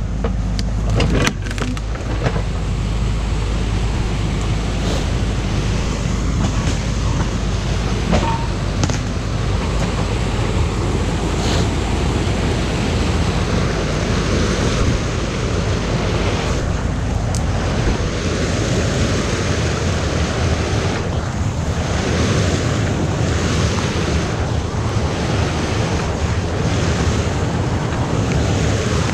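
Stream water rushing steadily over a small concrete weir and churning into the pool below.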